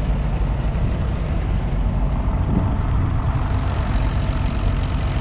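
1969 McCormick 434's 2.5-litre four-cylinder diesel engine running steadily.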